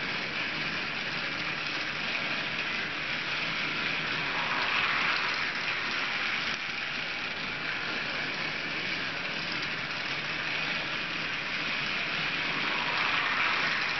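Battery-powered TrackMaster Rebecca toy engine running around a plastic track, its motor and wheels making a steady running noise along with the rattle of the cars it pulls. It swells twice, once around a third of the way in and again near the end, as the train passes close by.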